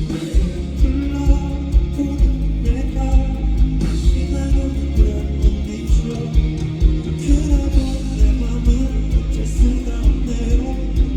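Live rock band music: a steady drum beat with guitars and a sung melody over them.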